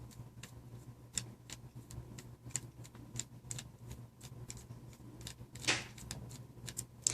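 Small Phillips screwdriver backing tiny screws out of a cell phone's plastic housing: a run of faint, irregular clicks and ticks, with a short scrape about two-thirds through.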